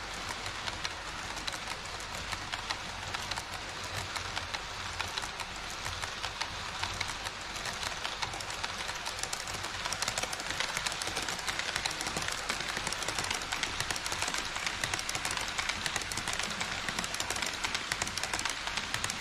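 HO-scale model trains running on KATO Unitrack: a steady metallic rolling rattle of small wheels with dense rapid clicking from the rail joints, a little louder from about halfway through.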